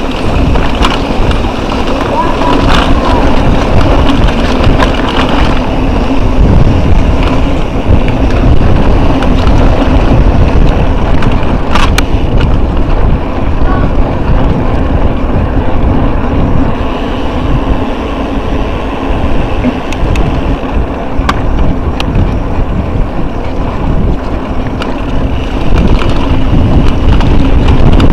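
Wind buffeting an action camera's microphone as a mountain bike rides down a dirt trail. Tyres rumble steadily, and the bike rattles and clicks sharply over bumps a few times.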